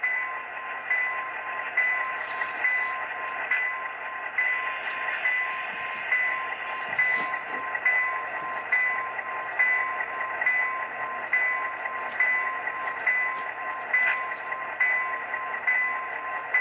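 Locomotive bell sound from the SoundTraxx Tsunami decoder in a Walthers HO F7A model, played through the model's small speaker. It rings steadily with even strikes, about one a second, over the decoder's continuous diesel engine idle sound.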